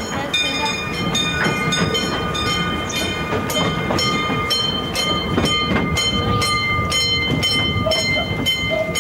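Narrow-gauge train rolling along, heard from its open passenger car: wheels clicking over rail joints over a steady rumble, with a steady high-pitched wheel squeal held through most of it.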